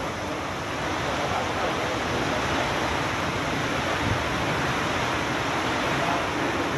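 Gale with heavy rain: a steady, dense rush of wind-driven downpour on the street.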